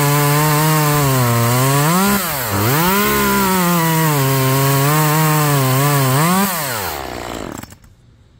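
Echo CS-2511T top-handle two-stroke chainsaw cutting through a log at full throttle. Its engine pitch dips sharply and recovers about two and a half seconds in. Near the end it revs up briefly, then winds down and stops.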